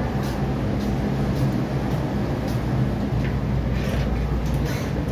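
Hong Kong MTR metro train running between stations, heard inside the carriage: a steady low rumble of wheels on rail with a constant motor hum and a few faint clicks.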